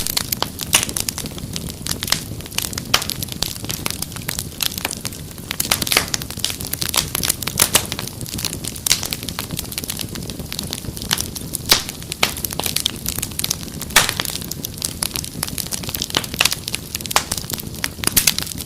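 Wood fire crackling and popping in a fireplace: dense, irregular snaps and pops over a low steady rumble of burning.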